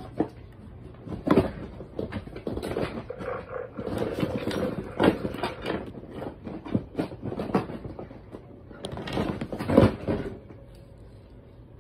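Electronic toy pet playing recorded animal sounds: a run of rough, noisy cries without a clear pitch, loudest about a second in and again near ten seconds in.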